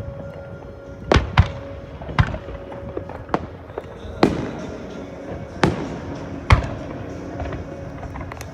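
Aerial firework shells bursting in a string of sharp bangs, about seven in all, some echoing, with the show's music playing underneath.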